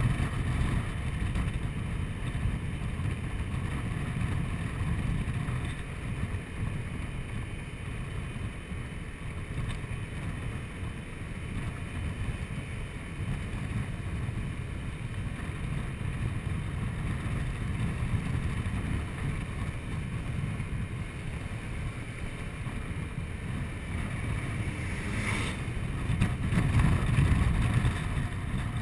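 Honda Forza 125 scooter riding along at steady speed: wind rushing over the handlebar-mounted camera's microphone mixed with the scooter's running engine and tyre noise. A short click comes about 25 seconds in, and the wind rush swells a little near the end.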